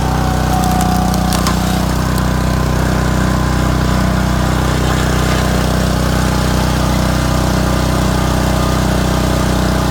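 Small gas engine of a log splitter running at a steady speed, with a few sharp clicks in the first second or two.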